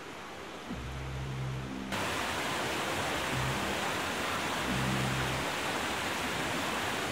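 Storm floodwater rushing through a cave passage: a loud, even rushing that comes in abruptly about two seconds in. Low, sustained music notes run underneath.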